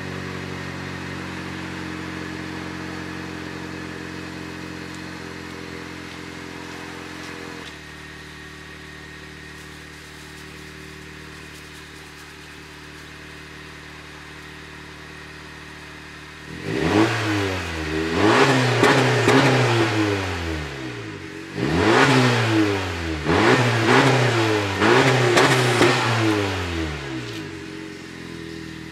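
Exhaust of a 2021 Honda Civic Sport hatchback's 1.5-litre turbo four-cylinder with the muffler deleted: a cold start, with a fast idle that drops to a lower, quieter steady idle about a quarter of the way in. In the second half, a series of quick revs rising and falling in pitch, with a deep exhaust tone, before it settles back to idle near the end.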